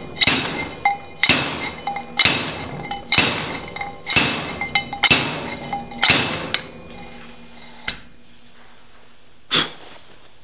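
A pipe being pounded down over a rear axle shaft to drive the bearing and collar on: seven ringing metal-on-metal strikes, about one a second, which stop about two-thirds of the way in, followed by a faint tap and a short click.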